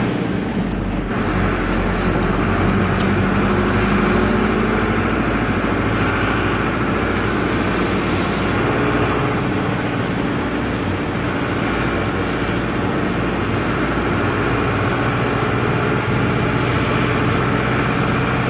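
Otokar M-2000 minibus's air-cooled Deutz F4L912 four-cylinder diesel running loudly under way, heard from the cab. The engine note rises over the first few seconds, then holds steady.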